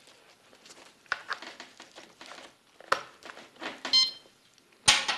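Handling noise of a CADD Prizm infusion pump and its battery-pack plug being pushed into the pump's power socket: scattered clicks and rustling. A short electronic beep comes about four seconds in, and a sharp click just before the end.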